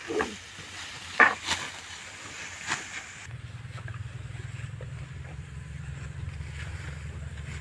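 Several sharp swishing strokes of a hand sickle cutting through dry rice stalks, the loudest about a second in. From about three seconds in a steady low rumble takes over.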